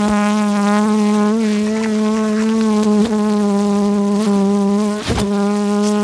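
Honey bee buzzing right at the microphone: a loud, steady drone that wavers slightly in pitch, with a few light ticks.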